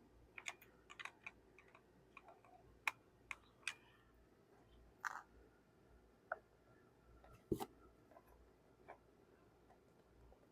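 Faint, irregular clicks and taps of small plastic console-lid parts being handled and fitted, with a few sharper knocks, the loudest about seven and a half seconds in.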